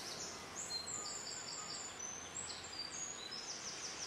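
Outdoor shoreline ambience: a steady hiss with many short, high-pitched chirping calls at several different pitches, some in quick pulsed runs and some sliding down.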